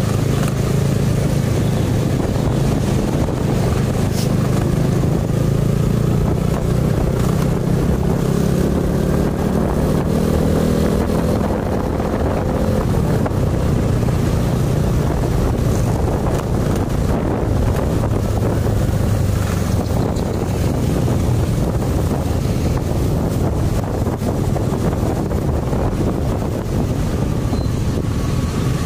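Motor scooter's engine running under way, with wind buffeting the microphone. The engine note climbs through the first third, then drops back and runs steadily.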